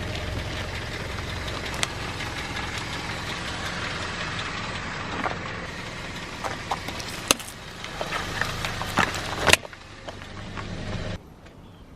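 Car engine running at low speed, with sharp cracks and snaps of objects breaking under its tyres. The loudest cracks come about seven and nine and a half seconds in.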